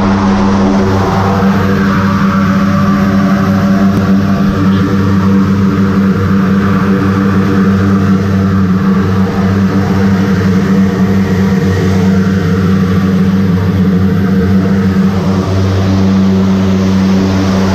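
Short Skyvan's twin turboprop engines and propellers running steadily, a constant drone with a deep hum heard from inside the cabin.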